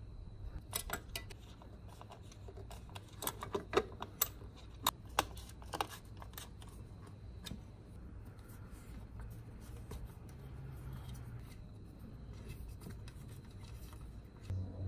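Hex key clicking and scraping in socket-head bolts as they are turned to fasten a fender eliminator bracket under a motorcycle's rear fender. There is a quick run of sharp metal clicks in the first half, then only occasional light ticks over a low hum.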